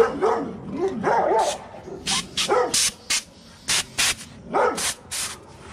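Short sharp hisses of compressed air escaping, about eight in a row, as the service valve on a home air-conditioning unit is pressed to check or release the test air pressure. A dog barks and yips among them, most in the first second and a half.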